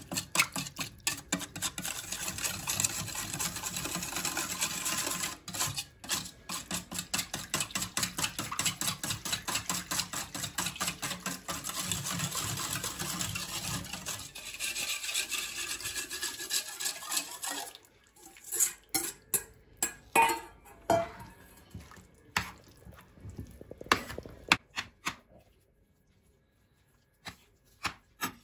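Wire whisk beating a thin, watery sauce in a stainless steel bowl: rapid, steady metal-on-metal clinking for about the first seventeen seconds. Then it breaks into a few scattered clinks and knocks, and is mostly quiet near the end.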